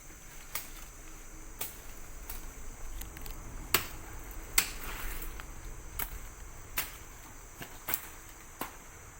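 Steady high-pitched chirring of night insects such as crickets, with about a dozen sharp clicks or snaps at irregular intervals under a second apart; the loudest come near the middle.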